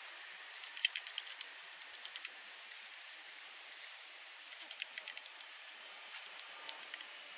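Chopsticks clicking and scraping against a metal mess tin as food is shovelled from it to the mouth. The light clicks come in quick clusters, about a second in, around two seconds and around five seconds, with a few single clicks near the end.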